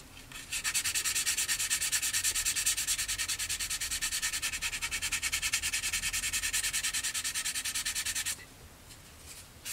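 Abrasive being rubbed back and forth along the seam of a soft polystyrene plastic model fuselage: rapid, even sanding strokes, several a second, that stop about eight seconds in. The sanding is levelling a step at a super-glued seam.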